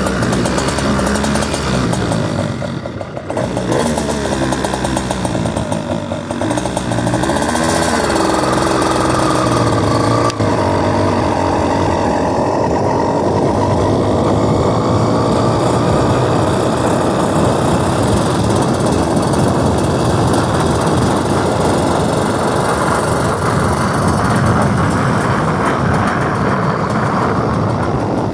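Motorized bicycle's small kit engine running while ridden. Early on the engine speed drops and picks back up twice, then it holds a steady, higher pitch.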